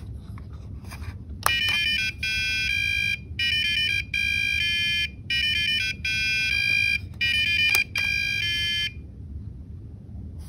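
An Arduino-driven piezo buzzer plays a programmed tune of shrill, buzzy electronic beeps, one note after another at changing pitches, with a few short breaks between phrases. The tune starts about a second and a half in and stops near the nine-second mark.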